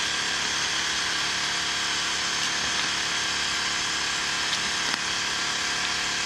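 A small electric motor runs steadily, a constant whirring hum with a fixed high whine and no change in speed.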